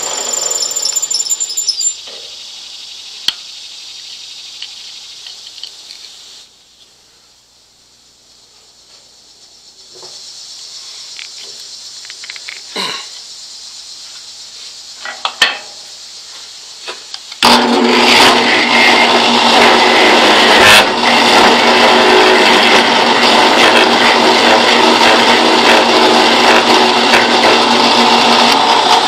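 A drill press converted to a wood carver, its small carving bit grinding out the bowl of a wooden spoon blank. The machine drops off about two seconds in and winds down to quiet, with a few clicks and knocks of adjustment. A little past halfway it starts again abruptly and runs loud and steady with a low hum, the bit cutting into the wood.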